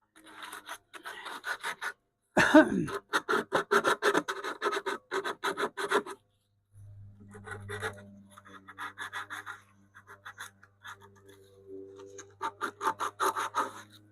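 Sandpaper rubbed back and forth by hand over a wooden radio cabinet's thin veneer, about four quick strokes a second in four bursts with short pauses between them. This is the finish sanding of the stripped cabinet before staining.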